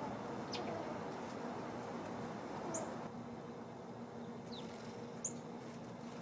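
Outdoor background noise with a few brief, high chirps from small birds around the feeder, spread over the middle and later part, over a faint steady low hum.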